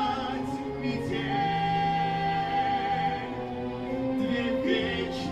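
Slow vocal duet ballad: singing with long held notes over instrumental backing.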